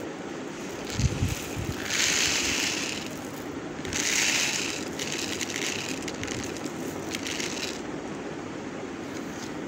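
Raw basmati rice being poured from its plastic bag into a stainless-steel bowl: the grains rush out in several spurts, the loudest about two and four seconds in, with a handling thump about a second in.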